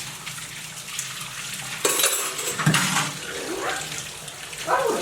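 Water running from a tap over dishes being rinsed, with light clatter of the dishes; the flow gets louder about two seconds in.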